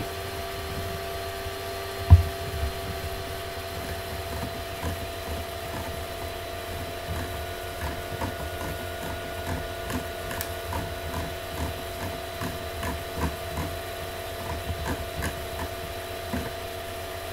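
Steady electrical hum holding a few fixed tones, with a single knock about two seconds in. From about four seconds on comes a run of soft ticks, about two a second, from a computer mouse's scroll wheel scrolling a document.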